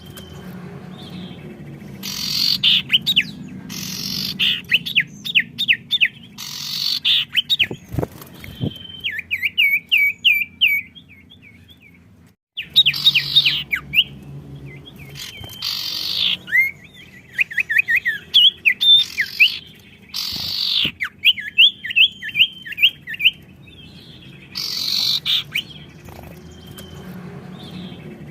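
Songbirds singing actively and answering one another: loud, harsh chirping calls alternating with fast runs of repeated trilled notes, over a faint low hum. The sound drops out briefly about halfway through.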